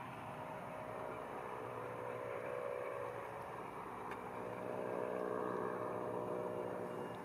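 Distant, steady drone of an Antonov An-12B's four Ivchenko AI-20 turboprop engines passing high overhead, a hum carrying a few steady tones. It grows a little louder about five seconds in and eases off near the end.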